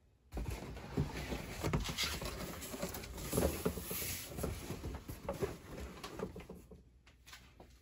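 Rustling and scraping handling noise with light knocks and crackles, starting suddenly and dying down near the end.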